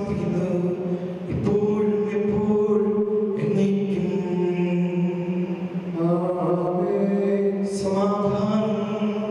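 Liturgical chant sung by voice, in steady held phrases of about two seconds each.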